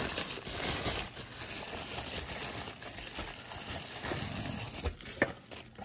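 Thin clear plastic bag crinkling as it is handled around a kitchen scale, with a short sharp tap about five seconds in.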